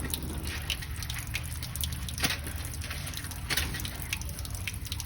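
Water dripping and trickling from the open end of a burst water pipe, in irregular drips and ticks.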